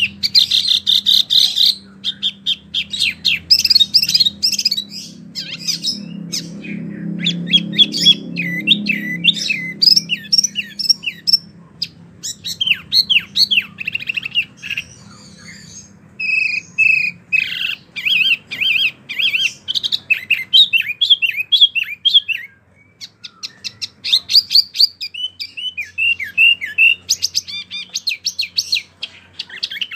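Wambi mini songbird singing persistently, rapid runs of short, sharp high chirps and trills, pausing briefly about two-thirds of the way through.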